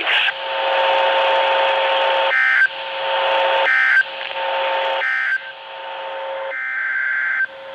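Emergency Alert System data tones on a weather radio broadcast: three short, shrill digital bursts about a second and a half apart, typical of the end-of-message code, with static and a steady hum between them. A longer burst follows near the end.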